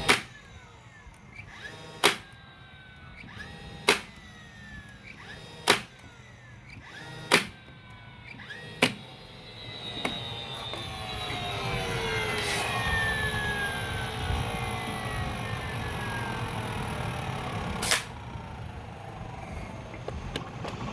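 DeWalt DCN680 cordless 18-gauge brad nailer firing seven sharp shots, six of them about two seconds apart and the last one near the end. A falling motor whine trails after the shots, and there is a longer stretch of steady whirring with falling whines in the second half.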